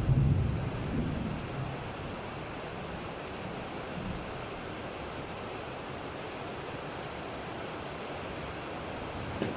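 Steady rain hiss, with the tail of a low thunder rumble dying away over the first second or two.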